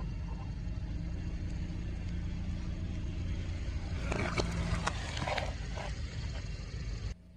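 Car engine running at low speed with a steady hum, and a burst of crackling and clicking about four seconds in as the tyre rolls over and crushes something. The sound cuts off abruptly near the end.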